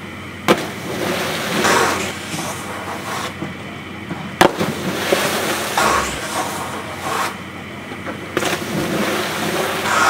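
Snowboards slapping onto a water-jump pool, with two sharp cracks and several hissing splashes, one near the end.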